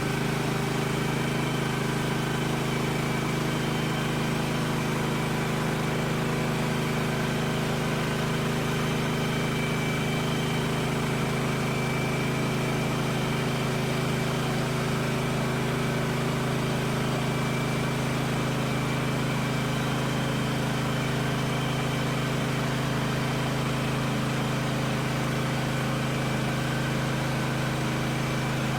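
Woodland Mills HM130 Max band sawmill's gas engine running steadily at one constant pitch.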